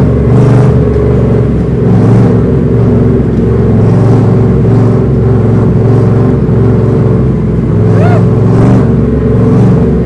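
Factory Five Racing Cobra replica's V8 engine running loud at low speed, rising and easing with the throttle as the car climbs a concrete parking-garage ramp. A short rising squeal about eight seconds in.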